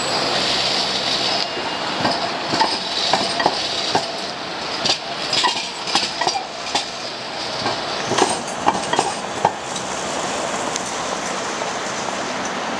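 Bombardier M5000 light-rail tram passing close by at low speed, a steady rolling hiss with a run of sharp clicks and knocks as its wheels go over rail joints and pointwork, the clatter thickest in the middle of the pass.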